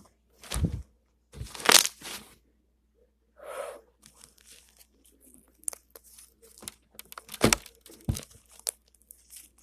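Homemade slime being stretched and pressed, with crackling and a run of sharp little pops as air bubbles trapped in it burst.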